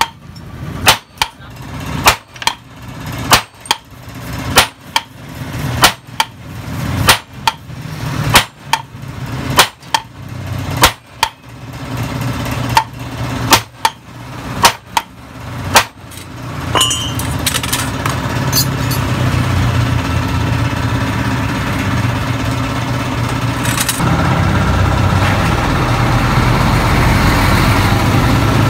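Repeated hammer blows on the seized rear axle of a Yamaha Mio Sporty scooter, sharp metal strikes about one to two a second, as the stuck axle is being driven out. About 16 s in the strikes stop and a steady engine-like running noise takes over.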